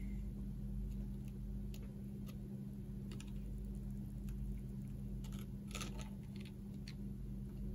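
Scattered small clicks and ticks from hands working wire and solder against a soldering iron on a wooden board, while a ladder-line joint is soldered. A steady low hum runs underneath.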